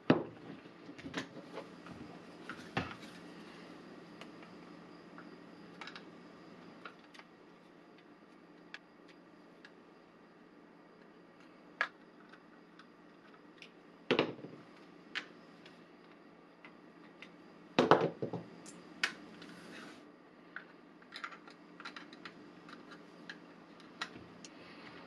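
Hand disassembly of a plastic cordless drill: a screwdriver clicking in the housing screws and the plastic shell tapping and knocking as it is handled and pulled apart. Scattered light clicks, with louder knocks near the start, about halfway through and a cluster a few seconds later, over a faint steady hum.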